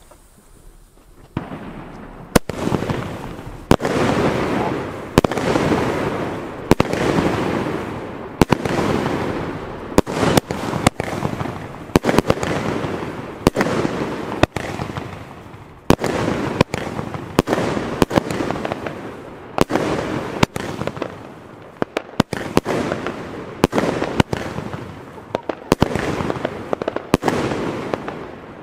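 JGWB Aramis firework battery firing shot after shot: after a quiet first second, powerful breaking shells burst with sharp bangs, roughly one a second, each trailing off before the next.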